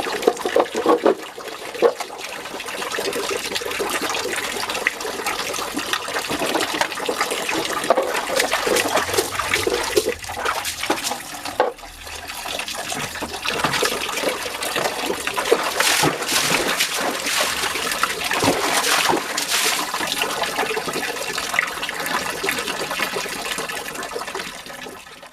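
Water running and splashing, with many small knocks mixed in; it breaks off briefly about twelve seconds in.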